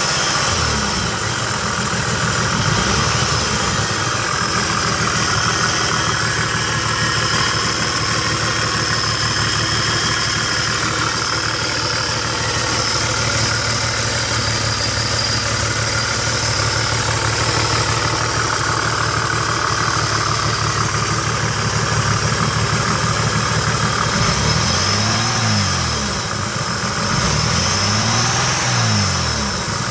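1991 Nissan Maxima's engine idling steadily, with its low tones wavering up and down a few times near the end. The owner is chasing a random noise that new spark plugs, wires, distributor cap and rotor have not cured.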